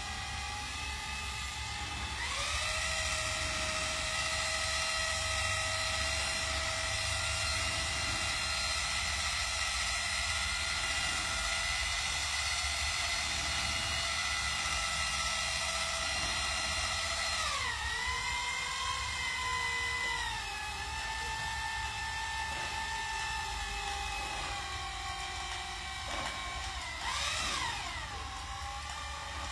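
A motor running with a steady whine; its pitch steps up about two seconds in, drops around seventeen seconds in and carries on lower, with a brief rise and fall near the end.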